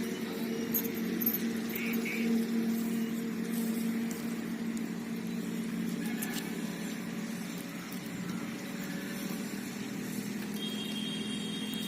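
A steady engine or motor hum, even in pitch, with a thin high whine joining near the end.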